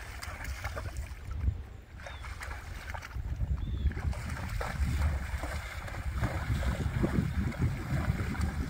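A horse wading through a shallow pond, its legs sloshing and splashing through the water, the splashing busier in the second half. Wind rumbles on the microphone throughout.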